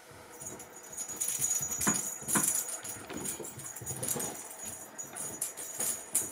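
A small toy ball with a bell inside jingling and rattling in quick irregular clicks as a German Shepherd puppy chases and paws it across a carpet, with a thin high ring held over the rattle.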